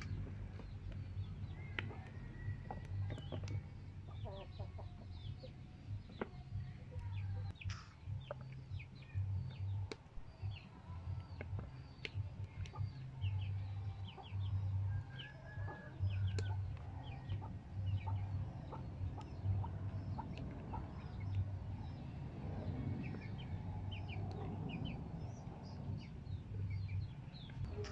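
Chickens clucking and small birds chirping, with many short high calls throughout. Under them runs a low rumble that comes and goes, with a few sharp clicks.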